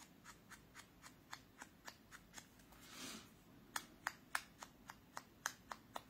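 A foam finger dauber dabbing on an ink pad and on the edges of a small paper label: faint, quick taps about four a second, with a soft rub near the middle.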